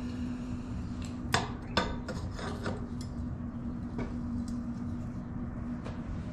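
Steel pieces being handled, clanking and scraping against metal. Two sharper clanks come about a second and a half in, with lighter taps after. A steady low hum runs underneath.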